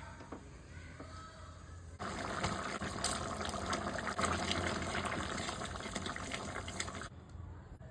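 Water running or being poured, starting suddenly about two seconds in and cutting off about five seconds later.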